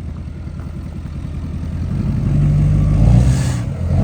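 Pickup truck engine running low, then revved up from about two seconds in, easing off briefly just before the end.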